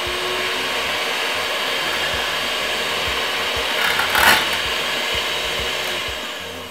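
Electric hand mixer running steadily, its twin beaters whisking eggs, oil and milk in a glass measuring jug, with a brief louder rattle about four seconds in. The motor winds down near the end.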